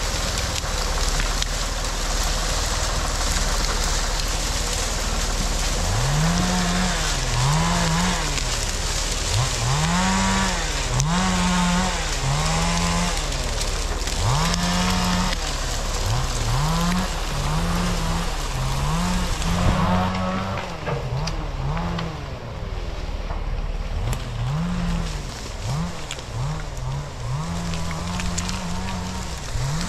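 A chainsaw engine revved up and down again and again. Each rev climbs quickly to a steady top speed, holds for about a second, then falls back, over a steady hiss. The revving pauses for a few seconds past the middle.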